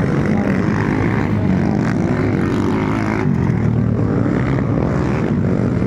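Small-wheel motocross dirt bike engines running on the track, a loud, steady buzz of overlapping engine tones.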